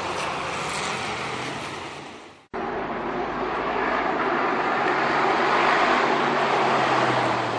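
Hillclimb race car engines running hard up the course. One car's engine fades away, then breaks off suddenly about two and a half seconds in. Another car's engine then grows louder to its loudest near six seconds as it comes up through the turns.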